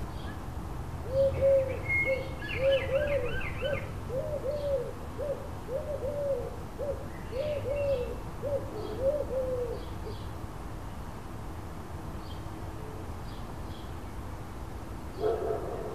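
A pigeon cooing, a run of repeated coos in phrases lasting about nine seconds, with a small bird's chirping over it for the first few seconds.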